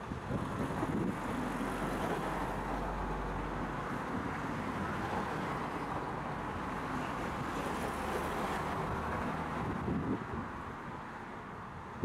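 Steady road traffic noise from passing cars.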